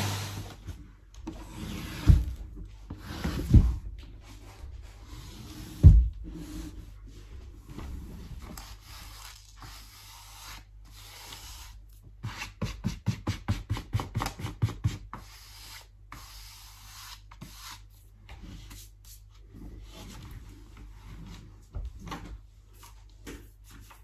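Household handling noises on a wooden floor with the vacuum off: three heavy thumps in the first six seconds, rubbing and scraping, and a quick run of clicks a little past halfway.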